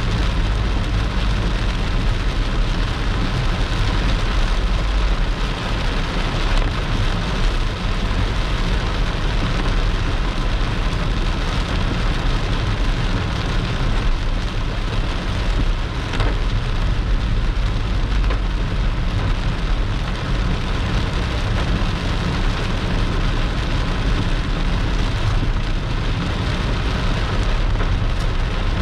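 Heavy rain pouring steadily, with a strong low rumble underneath.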